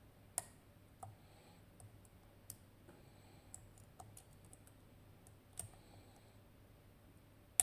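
Lock pick and tension wrench working inside a Tokoz Tech lock, faint scattered clicks and scrapes as the split wafers are probed and set, with a few sharper clicks about half a second in, around two and a half and five and a half seconds, and at the very end.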